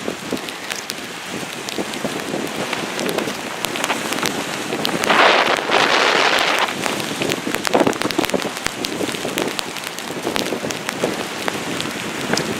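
Heavy rain falling, with many sharp raindrop hits close by and a stronger gust of wind rushing through about five seconds in.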